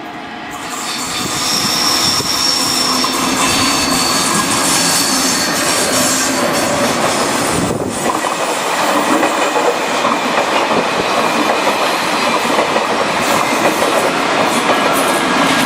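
A train passing close by, its cars running over the track with a steady loud noise that builds over the first second or two. Thin high-pitched wheel squeal comes through in the first few seconds.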